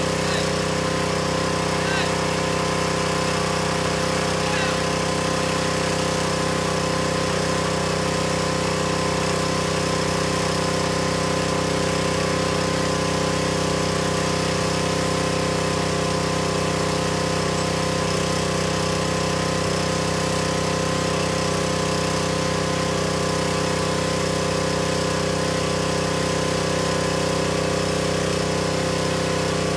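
Pressure washer running steadily, its motor holding one even pitch the whole time.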